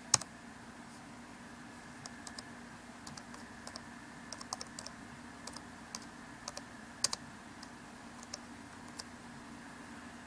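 Typing on a MacBook Pro laptop keyboard: irregular key taps in small runs, with two louder clicks, one right at the start and one about seven seconds in, over a faint steady hum.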